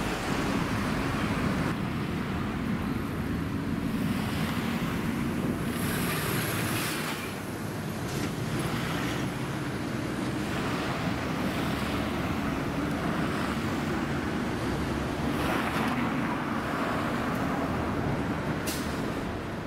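Street traffic noise: cars passing on the road, swelling past about six seconds in and again near sixteen seconds, over a steady rumble of wind on the microphone.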